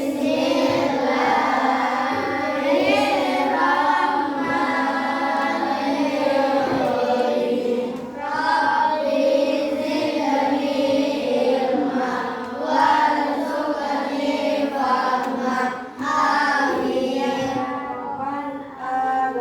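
A class of schoolchildren chanting a prayer together in unison, their many voices holding a sing-song recitation.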